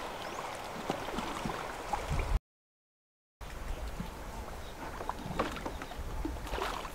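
River water splashing and dripping around a bamboo raft as a pole works the water and a fishing net is hauled out, with many small irregular splashes and drips. The sound cuts out completely for about a second partway through.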